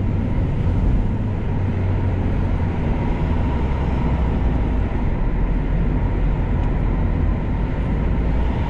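Steady low road rumble of a vehicle driving, with a faint steady whine above it.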